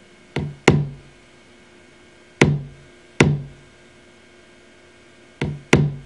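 Programmed kick drum loop playing back from a Maschine step sequencer at about 95 BPM: six punchy kick hits in a two-bar pattern, two of them quieter half-velocity kicks set just before full-velocity ones to give the beat swing.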